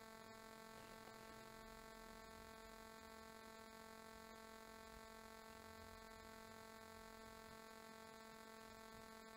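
Near silence: a faint, steady electrical hum in the room tone.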